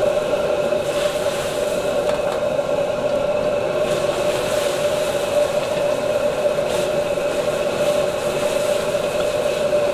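Steady roar of a commercial wok stove's high gas flame, holding one constant tone, with sauce boiling in the wok. A few light clicks come from the metal ladle and strainer against the wok as duck slices are tipped in and stirred.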